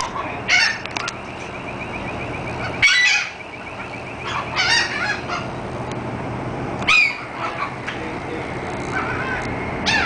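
Laughing gulls calling: loud, harsh calls about every two seconds, with a rippling laughing series in between, over a steady low hum.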